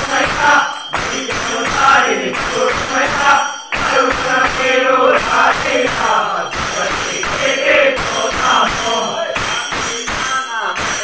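A group of men singing an Ayyappa devotional bhajan, their hand claps keeping a steady beat under the song.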